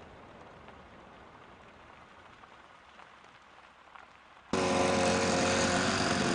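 Faint steady hiss, then suddenly a snowmobile engine running steadily and much louder from about four and a half seconds in.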